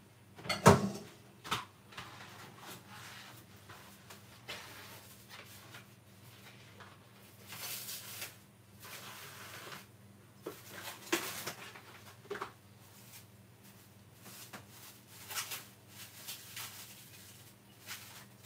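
Off-camera kitchen handling: scattered knocks and clatters of dishes, utensils or cupboards, the loudest a sharp knock about a second in, with a brief scraping noise near eight seconds. A steady low hum runs underneath.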